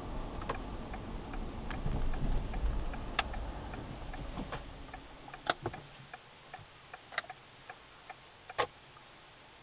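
Regular sharp ticks inside a moving car, about two a second, over low road and engine rumble that dies away about halfway through.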